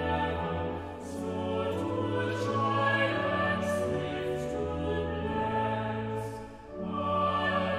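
Choir singing a hymn, held notes in harmony, with a brief breath between phrases about six and a half seconds in.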